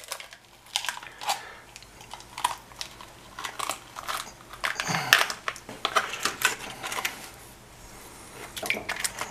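A knife blade prying and scraping at a rusted, crud-encrusted metal tin, with irregular clicks, scrapes and crunches as the crust breaks away and the tin is forced open.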